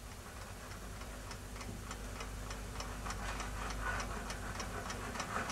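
Clock ticking with quick, even ticks over a low steady hum.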